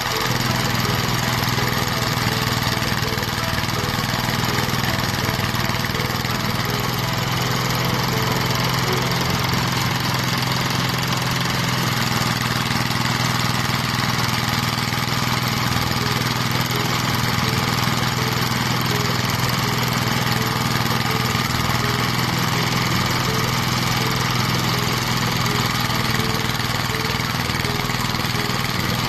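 Engine-driven rice thresher running steadily, a constant motor hum with the drum's whirring, with no change in speed.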